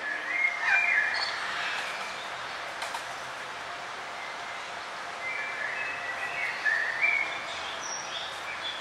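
Wild songbirds chirping in short phrases over a steady hiss of forest ambience. There is a cluster of calls in the first second and another from about five to seven and a half seconds in.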